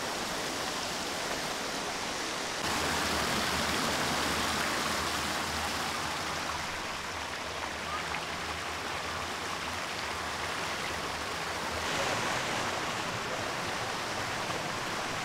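Stream water rushing steadily over rocks, a continuous hiss of flowing water that gets louder about two and a half seconds in.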